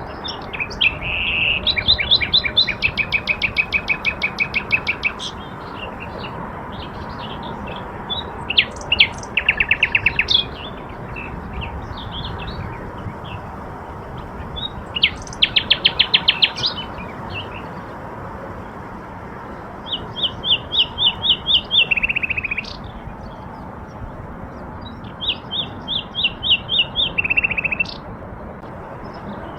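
A songbird singing five separate trilled phrases a few seconds apart. Each phrase is a quick run of repeated high notes, and several end in a lower, faster trill. A steady rushing hiss runs underneath.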